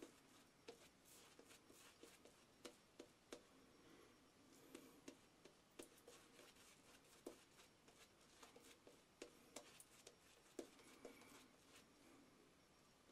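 Faint scratchy strokes and soft irregular clicks of a Razorock boar-bristle shaving brush working lather over the face.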